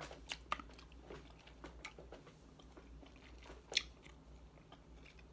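A person quietly chewing and biting fruit close to the microphone: small scattered mouth clicks, with one sharper click nearly four seconds in.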